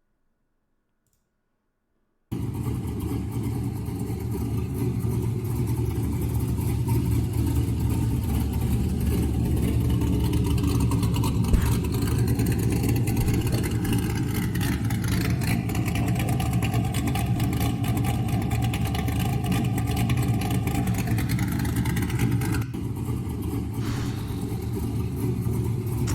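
Chevrolet Corvette C5's 5.7-litre small-block V8 running steadily, cutting in abruptly about two seconds in.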